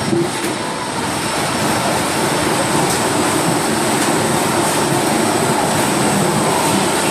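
Rotary veneer peeling lathe running, a steady dense mechanical noise with a faint, steady high whine over it.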